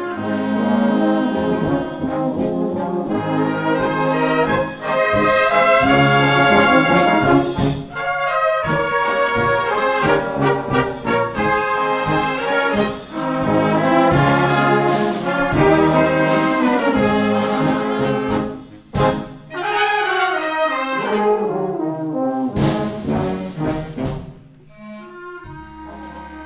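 A brass band playing: tubas, trumpets, trombones and horns in loud full-band passages broken by a few short pauses, with a descending run past the middle and a softer passage near the end.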